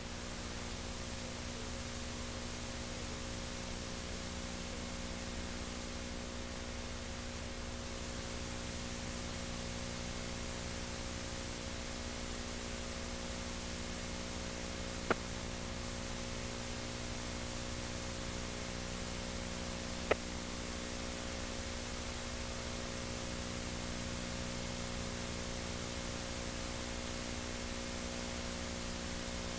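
Steady hiss with a low mains hum made of several steady tones: the background noise of a VHS tape transfer over a stretch with no sound recorded. Two brief clicks, about fifteen and twenty seconds in.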